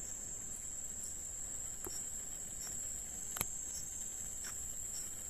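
Crickets trilling in one steady high-pitched drone, with a few faint clicks.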